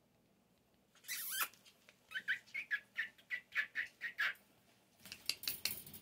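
Four-week-old Scottish terrier puppies squeaking. A short squeal comes about a second in, then a run of about ten high whimpers at roughly four a second. A patch of scratchy rustling follows near the end.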